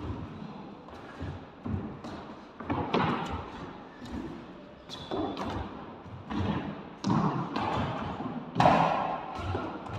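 Sports shoes landing and pushing off on a court floor during a footwork drill: quick, irregular thuds and scuffs, several close together, the loudest near the end.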